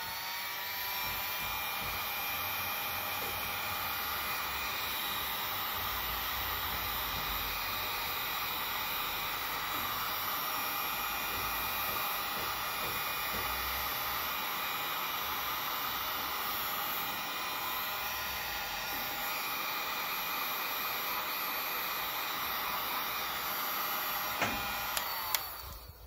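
Ace electric heat gun running steadily, blowing hot air to shrink heat-shrink tubing over a crimped copper ring terminal. Its motor spins up at the start and winds down as it is switched off near the end.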